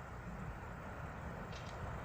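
Low rumble and hiss of a train at a railway station, slowly getting louder, with a brief faint high chirp about one and a half seconds in.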